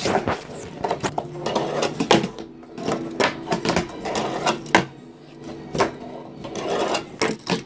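Fingerboard (Tech Deck) rolling across a wooden tabletop and ramp, with irregular sharp clacks as the tiny board is popped, flipped and lands on the wood.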